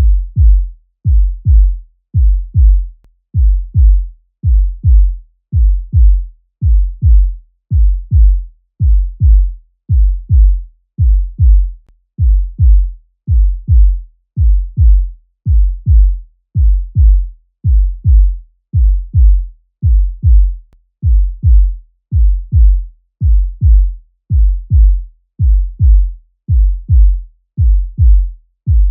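Human heartbeat sound effect: deep double thumps, lub-dub, repeating steadily at about one beat a second.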